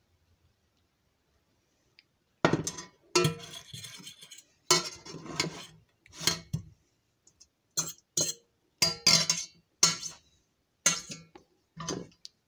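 A metal fork scraping and clinking against the inside of a stainless steel saucepan, scraping out the last of the sauce. The first scrape starts a couple of seconds in, followed by about ten more scrapes and clinks.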